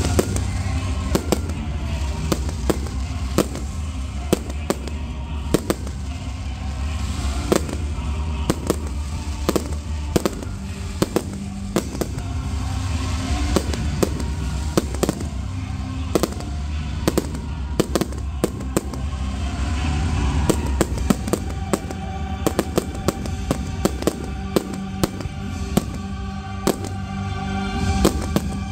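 Fireworks bursting in an irregular string of sharp bangs, often several a second, with music playing underneath.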